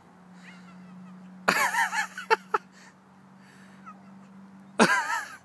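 A stray cat meowing loudly twice as it follows along behind: once about a second and a half in and again near the end, with a few fainter mews in between. A steady low hum runs underneath.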